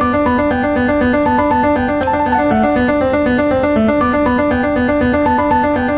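Background keyboard music: a quick run of short, evenly spaced notes over a bass that rocks back and forth between two notes.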